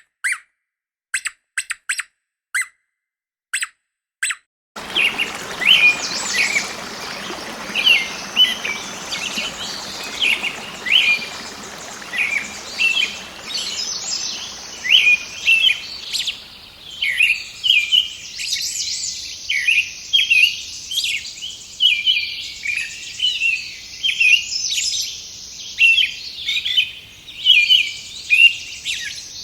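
Many birds chirping and trilling together in a dense chorus over a background hiss that thins out about halfway through. The chorus is preceded by a few seconds of quick, sharp clicks separated by silence that end abruptly when the birds come in.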